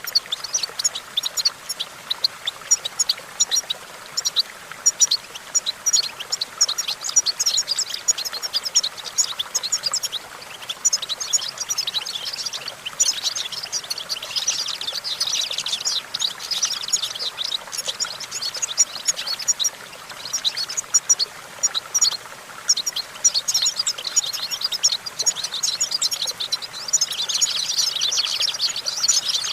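European goldfinch singing: a continuous, rapid twittering song of quick chirps and trills, growing denser about halfway through and again near the end.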